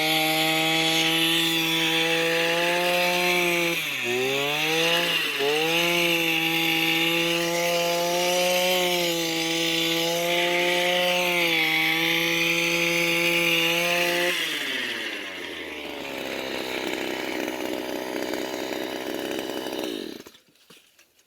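Small two-stroke engine of a gas-powered earth auger running at high speed while boring a post hole. It bogs down briefly twice, about four and five seconds in, as the bit loads up. About fourteen seconds in it drops to idle, then cuts off near the end.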